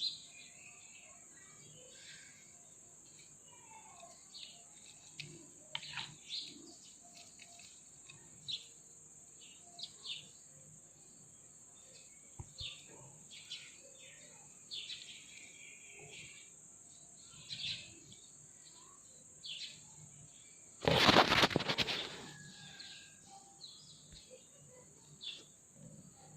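Short, scattered bird chirps every second or so over a steady high-pitched insect-like drone. About three quarters of the way through, a loud burst of rustling noise lasts about a second.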